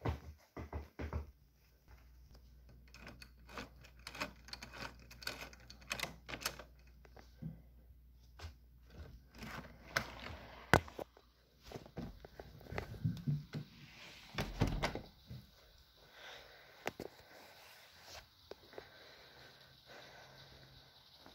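Footsteps and handling knocks of someone walking indoors and going out through a door: a sharp latch-like click about ten seconds in and a low thump a few seconds later. After that comes a faint steady hiss outside.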